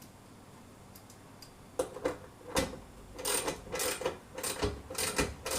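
Small metal hardware clinking and clicking as it is handled, an irregular run of sharp ringing clinks about two a second that starts about two seconds in.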